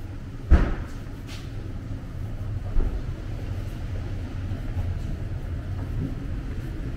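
Low, steady rumble of a route bus's engine idling at the stop, with a sharp knock about half a second in and a softer one near the three-second mark.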